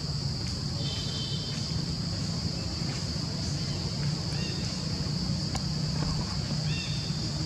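Steady high-pitched insect drone from the surrounding forest over a low steady hum, with two short chirps about four and seven seconds in.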